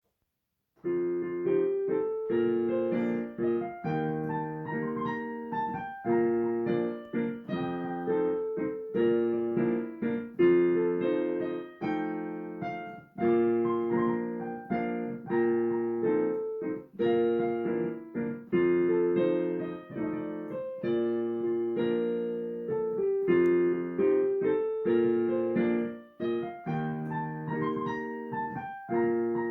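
Solo piano playing, starting about a second in: a continuous run of chords and melody notes with frequent note attacks and changing harmonies.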